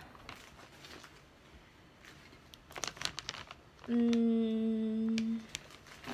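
Plastic bags crinkling as they are handled. A bit more than halfway through, a woman gives one steady hummed 'hmm', about a second and a half long, while she thinks.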